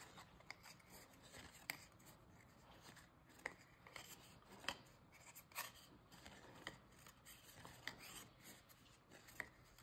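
Near silence with faint handling of Topps baseball cards: soft rubbing of cardboard and light ticks about once a second as cards are slid and flicked through a pack.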